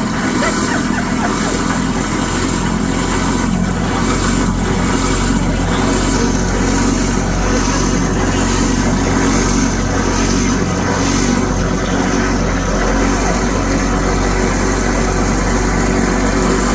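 Kitchen garbage disposal running with water, grinding ice to clean and sharpen its blades: a steady motor hum under an irregular rattling churn.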